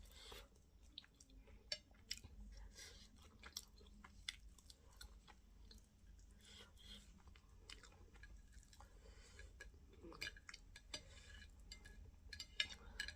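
Quiet close-miked chewing and lip smacking, with irregular wet clicks of the mouth, from a person eating fufu with okra fish stew.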